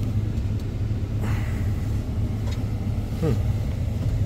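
Cummins 6.7-litre straight-six turbo-diesel of a 2012 Ram 3500 idling, a steady low rumble heard inside the cab, with faint handling noises from the centre console.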